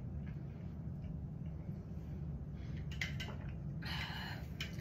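Quiet room tone with a steady low hum, and faint brief rustling or handling noises about three seconds in and again about four seconds in.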